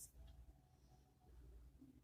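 Near silence: low room hum, with one faint click right at the start.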